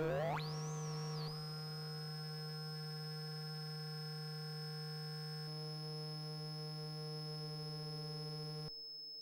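Kinetik Laboratories GORT The Robot drone synthesizer: its cluster of electronic tones sweeps quickly upward as the main frequency knob is turned, then settles into a steady drone of several held tones with a high tone on top. About two-thirds through the tones shift slightly, and near the end the lowest tone cuts off and the drone gets quieter.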